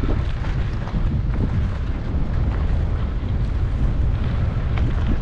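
Wind buffeting the microphone in a steady low rumble, with a few faint clicks and rattles, while riding a bicycle along a dirt trail.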